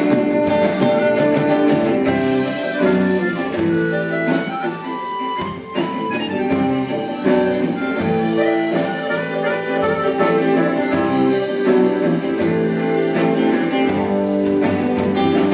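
Live folk band playing an instrumental passage, with accordion and harmonica carrying a stepping melody over a steady beat.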